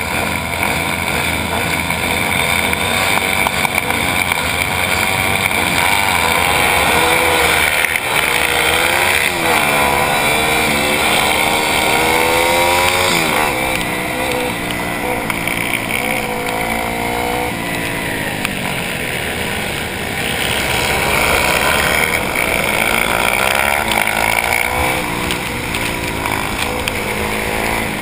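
Pit bike's single-cylinder engine heard from onboard, revving hard and dropping back again and again as the rider shifts and brakes through the corners, over steady rushing noise.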